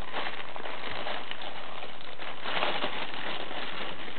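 A plastic bag crinkling and rustling as a cat paws and grabs at it and a hand tugs it, louder in a few short spells.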